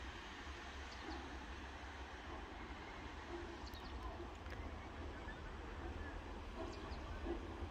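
Faint ambience of a distant Eb 3/5 steam locomotive standing at a station platform: a low steady rumble and a soft hiss of steam, with a few faint high chirps.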